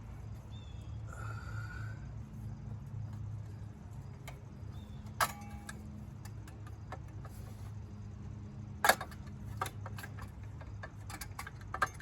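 A few sharp metal clicks and clinks of hand tools and loose parts while screws are taken out of a small engine's metal shroud, over a steady low hum. One click comes about five seconds in, a louder one about nine seconds in, and a quick run of small clicks comes near the end.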